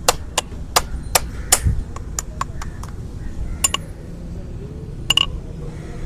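Sharp metallic hammer taps from hoof work, about two or three a second at first, then slower and scattered, with a quick double strike near the end.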